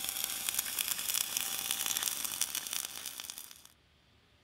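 CRC-Evans M-300C automatic pipe-welding bug's wire-fed, gas-shielded welding arc burning on a steel pipe joint: a steady crackling sizzle that cuts off suddenly near the end.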